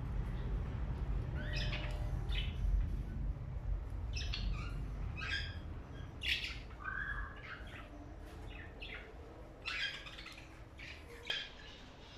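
Caged cockatiels and budgerigars calling: scattered short chirps and squawks, one or two every second or so, with a lower, rounder call about seven seconds in. A low steady rumble sits underneath and fades in the second half.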